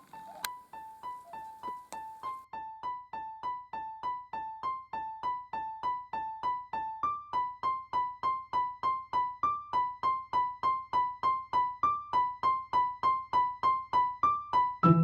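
Background music: a light keyboard figure of short repeated notes, about three a second, slowly getting louder.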